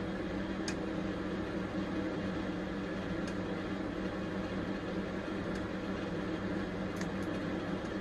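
Steady low machine hum with background hiss, broken only by a few faint ticks.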